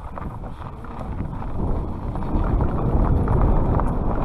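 Wind rushing over the microphone with a low rumble, growing steadily louder, as the fat-tire e-bike is ridden.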